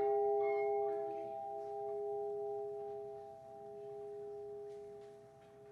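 The Edmund Fitzgerald's ship's bell ringing on after a single memorial toll for a lost crewman, its steady tone slowly dying away with a gentle swell and fade.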